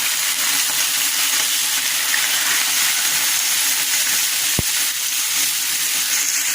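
Pieces of chicken frying in butter and oil in a pan, a steady loud sizzle. A single sharp click about four and a half seconds in.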